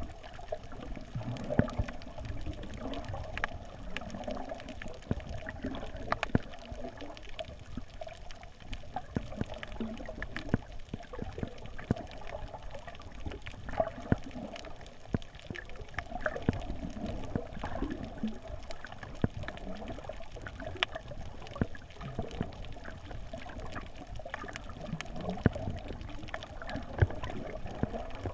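Quadcopter motors and propellers running, with a wavering hum under a low wind rumble and scattered sharp clicks and knocks.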